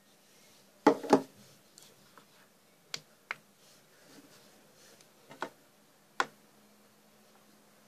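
Sharp, isolated clicks from a hand working a laptop's keys and buttons: a loud double click about a second in, then several single clicks spread out, over a faint steady hum.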